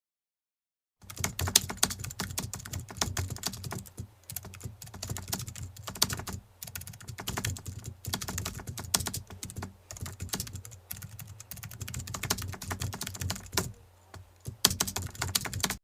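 Fast typing on a computer keyboard: a dense run of key clicks with a few short pauses, starting about a second in and cutting off abruptly near the end.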